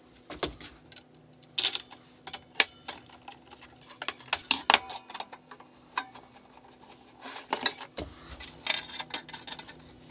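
Irregular light clicks and taps of small machine screws, a hand screwdriver and a plastic fan frame being handled as a computer fan is screwed onto a radiator. A faint steady hum runs underneath.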